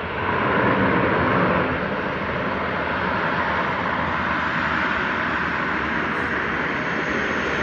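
Steady, loud propeller-aircraft engine noise. It comes up sharply just after the start and holds level.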